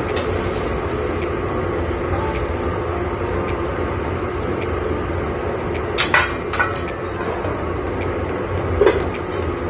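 Wire balloon whisk beating liquid batter in a stainless steel bowl, with light clicks of wire against metal over a steady background rumble. There is a sharper metal clatter of steel bowls about six seconds in and again near the end.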